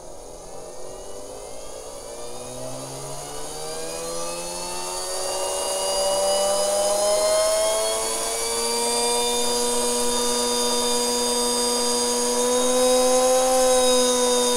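Small 3D-printed three-phase permanent-magnet electric motor in a jet-style fan housing revving up, its whine climbing steadily in pitch and loudness as it spins from about 4,500 to over 15,000 RPM. The rise levels off about eight seconds in, then edges higher again near the end.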